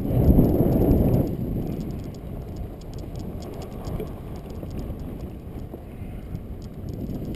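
Kite buggy rolling over rough grass, its wheels and frame rattling, mixed with wind buffeting the helmet-cam microphone. It is loudest for about the first second, then settles into a steadier, quieter rumble.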